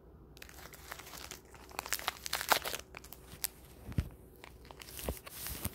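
A snack wrapper crinkling and tearing as it is handled and pulled open, with many irregular sharp crackles.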